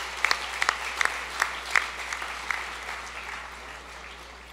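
Audience applause, a haze of many hands with a few sharper single claps, dying away toward the end.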